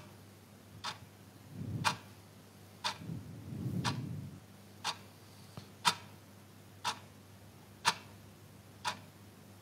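Sharp ticks at a steady one per second, like a ticking clock or timer. A faint low murmur comes twice in the first half.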